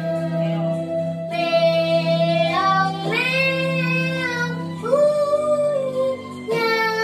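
A young girl singing a children's song, holding long notes, with electronic keyboard accompaniment sustaining low chords underneath.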